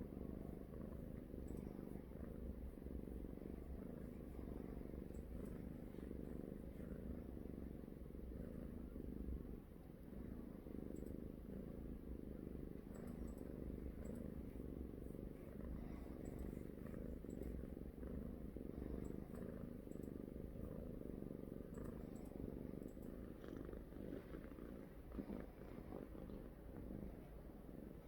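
A domestic cat purring continuously, a low, steady rumble.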